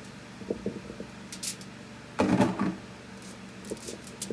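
Kitchen handling: a few light knocks, then a louder rustling clatter about two seconds in as cut potato pieces are dropped onto a sheet of aluminium foil, over a steady low hum.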